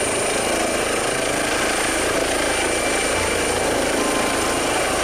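Helicopter sound, steady and unbroken, with a thin high whine over it.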